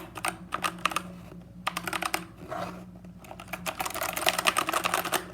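Mechanical keyboard keys being typed on in quick clicky runs, densest near the end; the switches sound like Cherry MX Blues.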